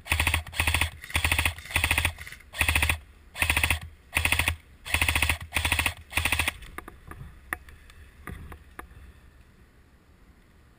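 Airsoft gun firing about ten short full-auto bursts in quick succession, each a rapid rattle of shots, stopping after about six and a half seconds.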